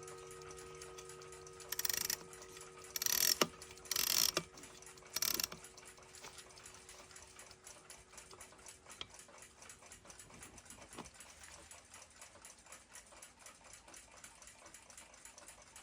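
Four short, loud handling noises in the first five seconds, then the movement of a 1940s German flip clock ticking fast and evenly.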